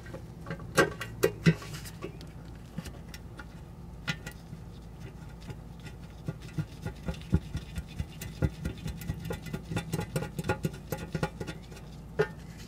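Nitrile-gloved hands holding a transmission fluid pan against the case and hand-starting a pan bolt: irregular small clicks and scratchy rubbing, over a faint low steady hum.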